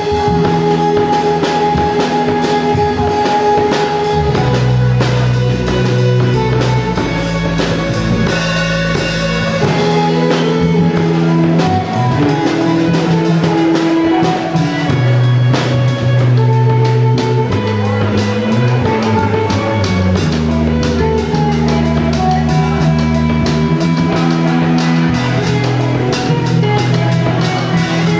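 Live rock band playing an instrumental: electric guitar and bass over a drum kit, with long held notes and a bass line that moves every few seconds.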